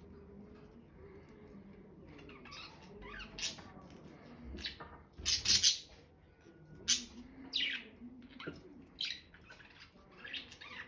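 Pet parrots squawking and chirping in a string of short, high calls, the loudest a little past the middle, a few sweeping down in pitch.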